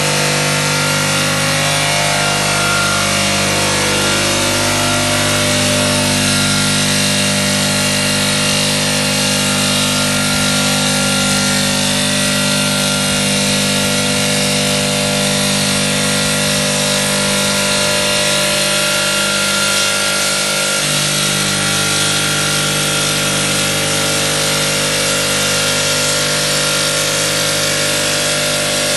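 A machine running steadily: a continuous hum of several held tones over a hiss, with no change in loudness.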